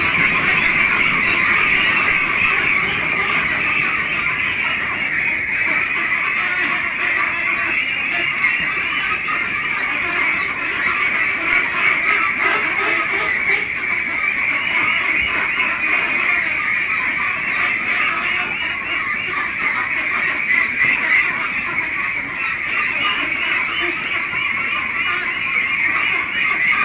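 A flock of Pekin ducks quacking, many voices overlapping in a dense, steady din.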